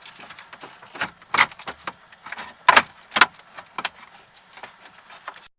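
Dash trim panel being worked free and eased past the gear shift: a run of irregular plastic clicks, knocks and scrapes, loudest about a second and a half in and around three seconds in. The sound cuts off suddenly near the end.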